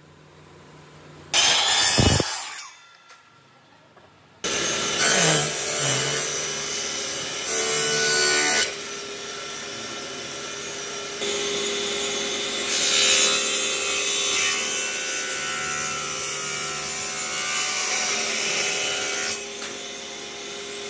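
A miter saw makes a brief cut through a wooden board about a second in. A few seconds later a table saw starts and runs with a steady whine while thin wooden strips are ripped, louder while the wood is fed through the blade, until it stops shortly before the end.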